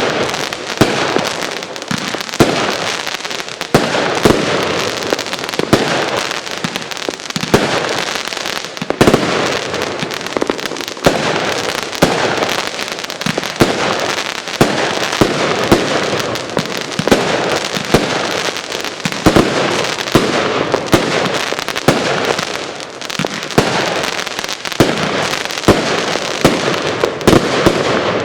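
Gate of Heaven 3 consumer fireworks cake firing a long barrage of crackling-tail shots bursting into chrysanthemums and titanium salutes: dense, continuous crackling with sharp bangs about once or twice a second, ending abruptly near the end.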